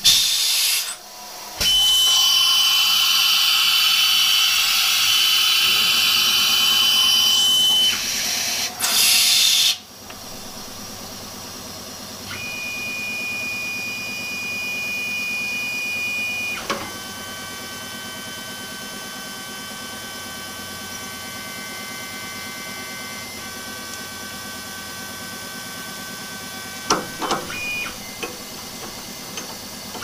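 Milling machine working aluminium. A loud hiss of compressed air comes first, cut off about ten seconds in. Then the spindle runs with a steady whine that steps down to a lower pitch partway through. A few sharp clicks come near the end.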